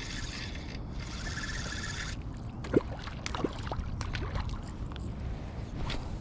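Kayak angler's fishing reel winding in line for about two seconds, bringing in a lure fouled with grass. Scattered knocks and clicks of gear against the kayak follow, one much sharper about three seconds in, over a steady low rumble of wind on the microphone.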